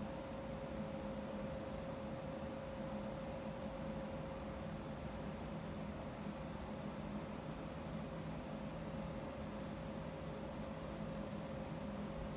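Graphite pencil shading on paper: light scratchy strokes in several stretches of a second or two with short pauses between, laying in tone on a portrait sketch. A steady hum runs underneath.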